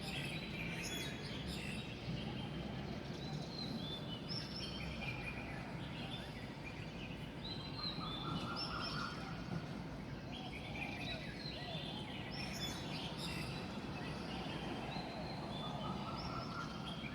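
A chorus of wild birds chirping in quick, overlapping short notes, with a longer, lower phrase twice. A steady low hum of background noise runs underneath.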